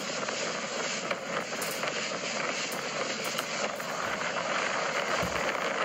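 Motorboat under way at sea: a steady rushing noise of engine, wind and water, with no change in level.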